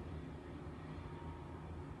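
Quiet room tone: a steady low hum with no distinct events.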